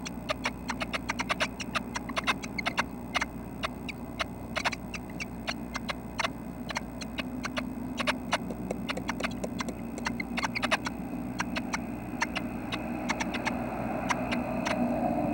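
Irregular sharp taps and scratches of red-breasted nuthatch nestlings moving and clawing about inside the nest box. The birds are close to fledging. The taps come thick in the first few seconds and thin out later, over a steady low hum.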